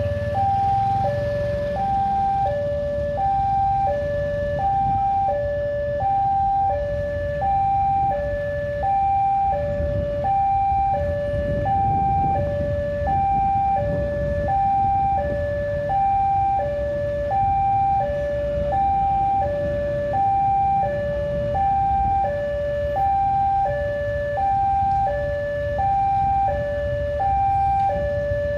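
Railway level-crossing warning alarm sounding a steady two-tone high-low pattern, about one cycle every second and a half, the signal that a train is coming and the barriers are down. A low rumble runs underneath.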